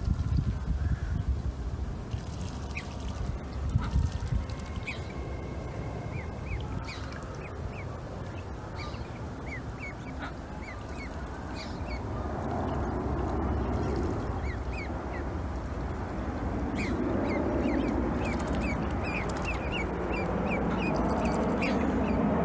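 Ducklings peeping: many short, high, falling peeps, sparse at first and coming several a second near the end, over a low background rumble that grows louder in the second half.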